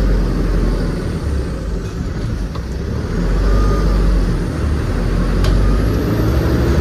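Steady low engine and road rumble heard from inside the cab of a moving truck.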